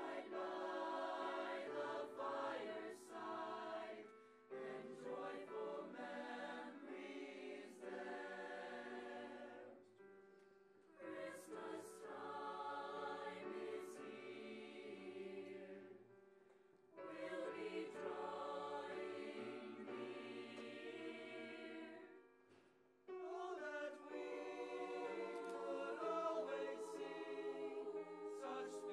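A mixed-voice high school madrigal choir singing in parts, in phrases of about five seconds with short breaks between them.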